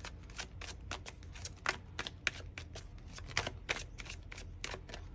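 A deck of cards being shuffled by hand: rapid, irregular papery clicks and riffles throughout.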